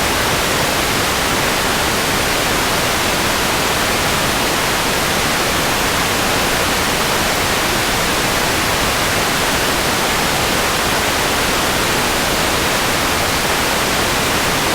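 Loud, steady broadcast static: an even hiss of white noise from a lost TV feed, with the signal dropped and nothing but noise on the channel.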